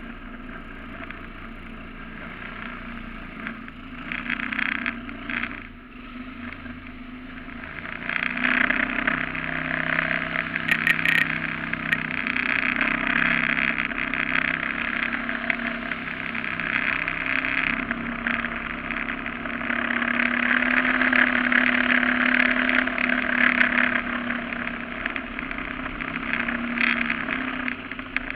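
A duck boat's mud motor running steadily with water rushing along the hull. It runs low at first, then grows louder about eight seconds in as the boat picks up speed, and is loudest a little past the middle.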